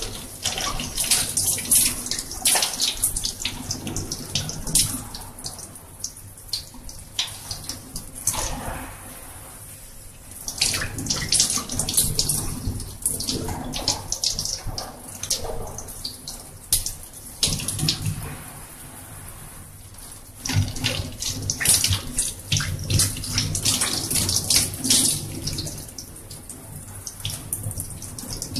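Water running from a gooseneck tap into a stainless-steel scrub sink, splashing unevenly and rising and falling in loudness as hands and forearms are rinsed under the stream.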